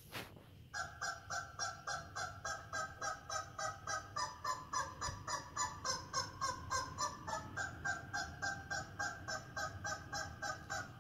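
A chicken video playing on a TV: honking, fowl-like calls repeating very regularly, about three and a half a second, with the pitch shifting twice like a tune.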